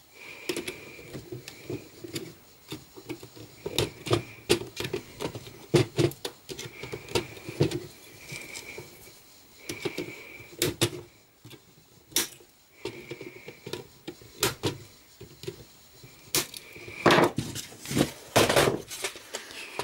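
A small blade cutting and scraping at the plastic ribs of 4-way battery holders: irregular sharp clicks and scrapes with short high squeaks, the plastic being trimmed to make space for nickel battery strapping. A run of louder clicks comes near the end.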